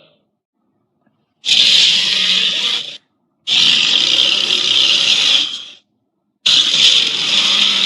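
Three harsh monster roars, a made-up kaiju's sound effect built from edited King Kong and Godzilla creature roars. The roars are each about two seconds long, with short silences between them, and the last runs on past the end.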